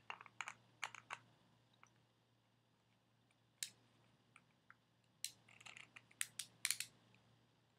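Faint, sparse clicks and scrapes of a small screwdriver tip working a tiny screw on the plastic back of a Yak Bak voice-recorder toy, with a few in the first second, a couple of lone ticks mid-way and a quick cluster of clicks near the end.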